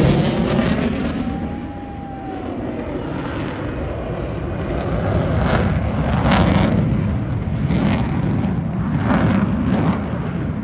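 Stealth fighter jet's engine noise during an air show pass, a loud continuous rushing rumble that dips about two seconds in and swells again in the middle.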